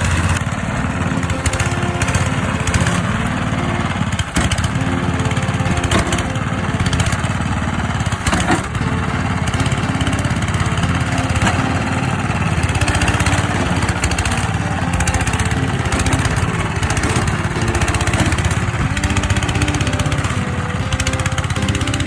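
Small engine of a 'kura-kura besi' paddy-field plough running steadily, its pitch shifting slightly, with a couple of brief knocks.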